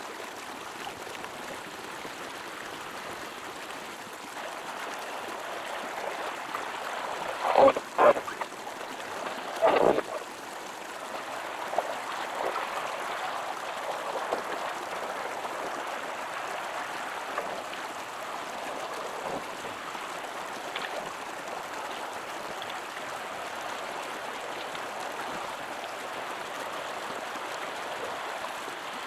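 Flowing river water making a steady rush, with three short, louder sounds close together about a third of the way in.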